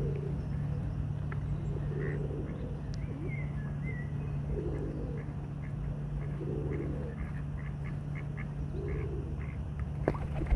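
Ducks quacking, a low call repeated every second or two, over a steady low hum, with faint high chirps of other birds.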